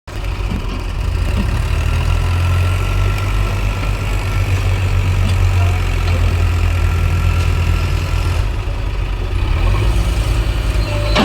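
JCB 3DX backhoe loader's diesel engine running steadily with a deep, even hum.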